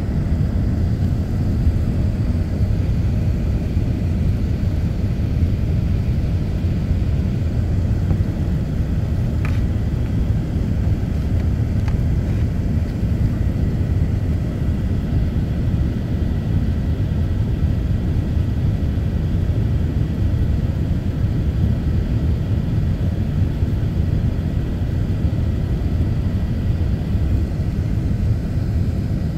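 Steady low rumble of an airliner cabin in flight on descent: engine and airflow noise heard from a window seat. A faint steady high tone sits above it from about a third of the way in.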